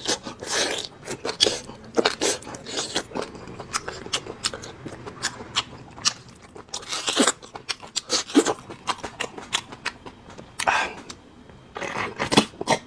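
Close-up mouth sounds of eating bone marrow: repeated wet sucking and slurping as marrow is drawn out of cut sections of braised bone, with chewing and lip-smacking in between. A longer, louder slurp comes about seven seconds in.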